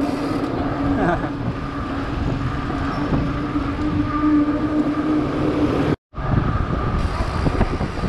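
Wind on a handlebar-mounted camera's microphone and bicycle tyres rolling on asphalt, with a steady hum under it for the first six seconds or so. The sound drops out for an instant about six seconds in.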